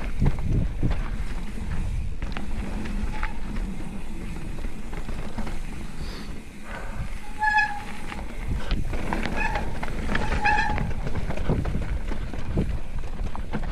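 Mountain bike riding down a dirt trail: steady rumble of tyres, rattling bike and wind on the microphone. There are short high squeals about halfway through and a few more a couple of seconds later.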